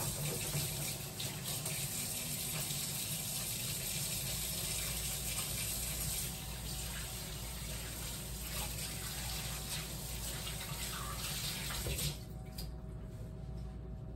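Kitchen faucet running as hands are rinsed under it, shut off near the end.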